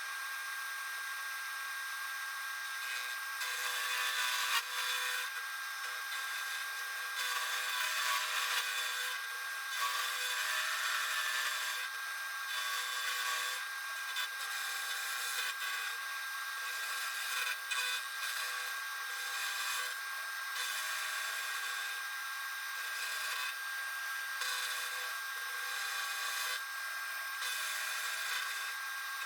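Milling machine running an end mill across the face of a cast pallet: a steady cutting hiss with a constant high whine, swelling and easing slightly as the cut goes on.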